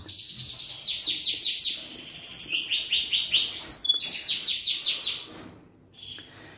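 Domestic canary singing: a run of fast trills, each a string of rapidly repeated notes, the speed and pitch of the repeats changing every second or so. The song stops about five seconds in.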